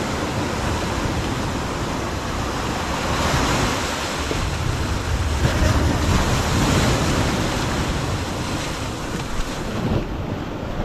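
Rushing noise of wind buffeting the microphone over waves, swelling about three seconds in and again around the middle.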